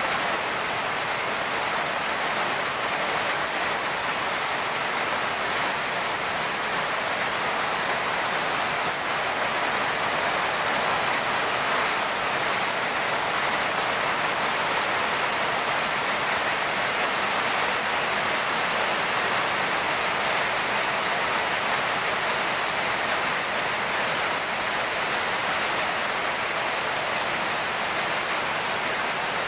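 Steady rainfall on palm trees and garden foliage: an even, unbroken hiss with no single drops standing out.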